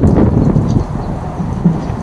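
Wind buffeting the microphone in a steady low rumble, with a few knocks near the start as the car door is shifted on its metal stand.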